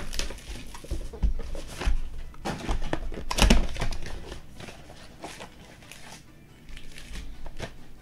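Hands tearing open and handling trading-card box packaging: irregular crinkling and rustling of wrap and cardboard, with the loudest rip a little past the middle.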